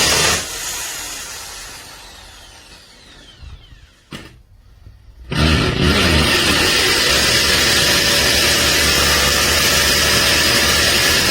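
DongCheng 6A corded hammer drill running flat out. It is released about half a second in and its motor winds down with a falling whine for a few seconds. After a click, it is triggered again about five seconds in, revs up with a rising whine and runs steady at full speed.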